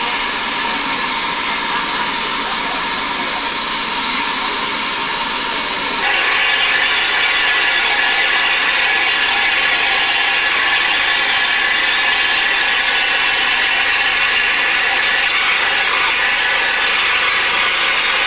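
Steam hissing steadily from a standing steam locomotive, stepping up suddenly about six seconds in to a louder, fuller hiss that carries on.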